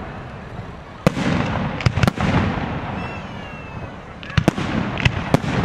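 Fireworks display with sharp bangs of aerial shells bursting over a low rumble. There is a bang about a second in, a quick pair around two seconds, and a cluster of bangs near the end. A brief whistle sounds in the middle.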